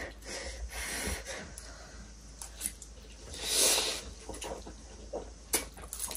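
Noodles being slurped and chewed, with one louder, longer slurp about three and a half seconds in. A few light clicks of a fork and chopsticks against plates come near the end.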